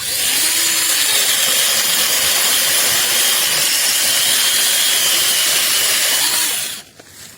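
Peektook 6-inch brushless mini cordless chainsaw running and cutting through wood: a loud, steady, hissing saw noise that starts abruptly and stops after about seven seconds.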